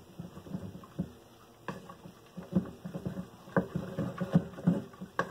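Wooden spoon stirring a thick ricotta, spinach and mushroom filling in a stainless steel mixing bowl: a run of irregular soft knocks of the spoon against the bowl and the mix, growing quicker and denser after about two seconds.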